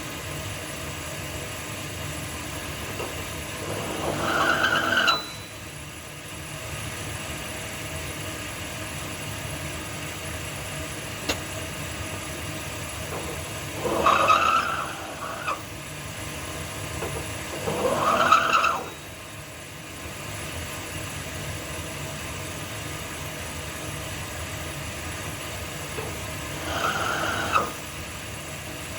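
A power tool running with a steady hum, its chamfer cutter squealing against the steel in four short bursts as it chamfers the small-end pin bores of Ford 302 connecting rods.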